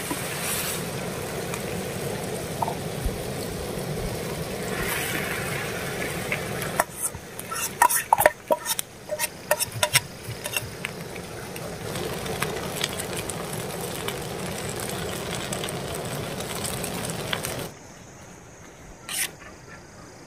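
Food sizzling in a pan on a portable gas canister stove, with a metal spoon scraping and stirring. About halfway through, a run of sharp clinks as noodles are scraped from a metal pot into the pan. Near the end the steady sizzle drops away suddenly.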